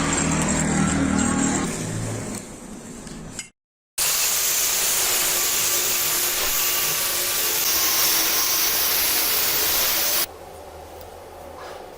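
A low motor-like hum cuts out. About four seconds in, a loud, steady hiss starts, typical of an arc welding electrode burning, and runs for about six seconds. It drops abruptly to a quieter low hum.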